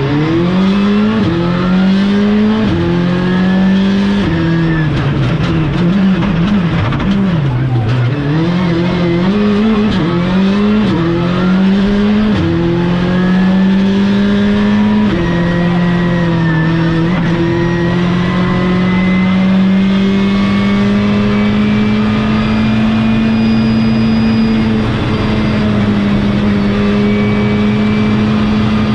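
Skoda Fabia Rally 2's turbocharged 1.6-litre four-cylinder engine, heard from inside the cabin at full throttle. It revs up through a run of quick gear changes in the first dozen seconds, then pulls in one long, slow climb in a high gear.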